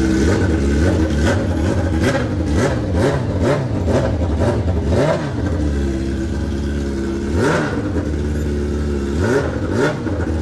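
BMW S1000RR inline-four engine revved repeatedly at the throttle: a quick string of short blips through the first five seconds, then two bigger revs near the end. The bike is running again after its wiring and engine-computer faults were repaired and it was reassembled and set up.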